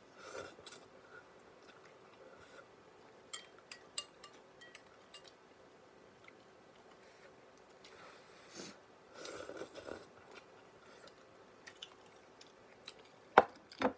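A person chewing a mouthful of noodles close to the microphone, with scattered sharp clicks of chopsticks against the bowl; the two loudest clicks come near the end.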